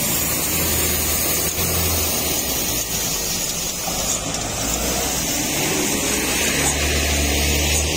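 Heavy truck engines running at low speed close by, a steady low hum under an even hiss, the hum swelling in the last second or two.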